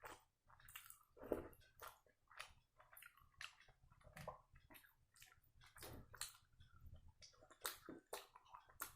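Close-up chewing and wet mouth sounds of a person eating sambar-soaked vada: soft squelches and lip smacks in an irregular run, several a second.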